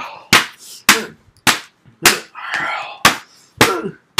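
Paperback picture books smacked against each other in a rapid series of sharp slaps, about two a second, with short vocal grunts between some of the hits.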